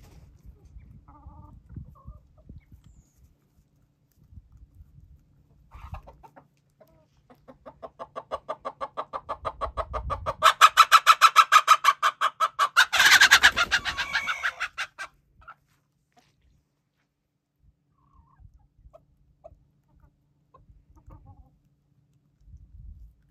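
Icelandic chicken giving a long run of rapid, evenly spaced clucks that swells over several seconds and peaks in a louder, harsher call near the middle, then dies away. Softer scattered clucks from the flock come before and after it.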